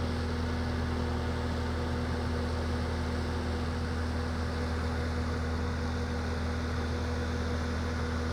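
Skid steer's diesel engine running steadily, a constant low drone with no change in pace.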